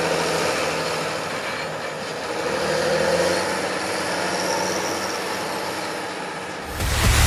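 John Deere tractor running as it drives past hauling a loaded three-axle grain trailer, engine and rolling trailer heard together. Music cuts in near the end.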